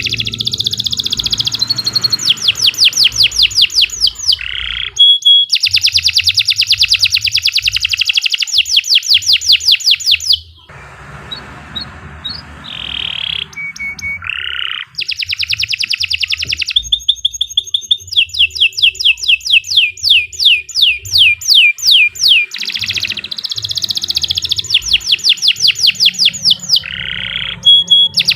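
Domestic canary singing a long, continuous song of fast, high-pitched repeated trills and rolls. The song drops to quieter, scattered notes for a few seconds about a third of the way in, then resumes at full strength.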